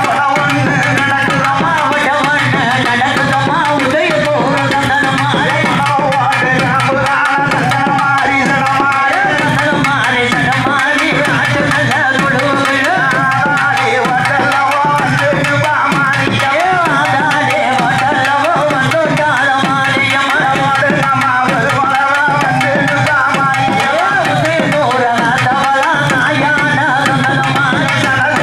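A woman singing a Tamil amman azhaippu, a folk song calling on the goddess Mariamman, through a microphone and loudspeaker, over a steady hand-drum beat.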